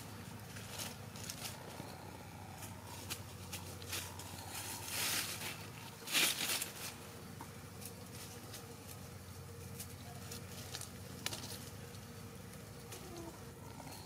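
Bantam chickens rustling in dry leaf litter: scattered small crackles and ticks, with two louder rustles about five and six seconds in, over a low steady hum.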